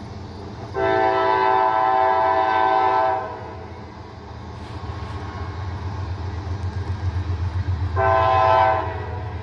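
Locomotive air horn sounding a long blast of about two and a half seconds, then a short blast near the end, as the train approaches. Between the blasts a low rumble from the oncoming train grows steadily louder.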